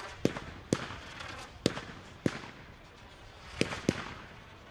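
Display fireworks going off: about six sharp bangs at irregular spacing, with a fizzing crackle from glittering stars between them.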